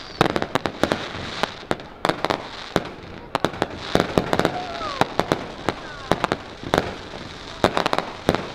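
Fireworks going off: a rapid, irregular string of sharp bangs and crackles, with a few short whistles about halfway through.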